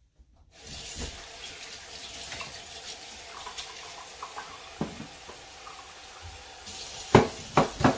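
Kitchen tap running onto a plate in a stainless steel sink as dishes are rinsed. Near the end, a few loud knocks of dishes in the sink.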